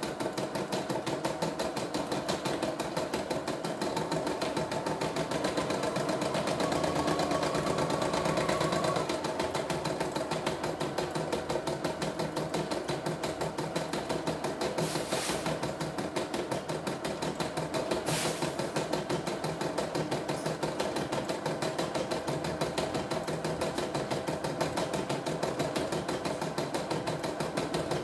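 CNY E960 portable embroidery machine stitching out a design, its needle going up and down in a rapid, even rhythm over a steady motor hum as the hoop carriage moves the fabric. Two brief hisses come about halfway through.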